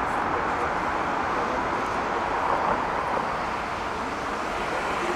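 Jet engines of a Boeing 787-8 airliner on its landing pass, a steady rushing noise that eases slightly about four seconds in.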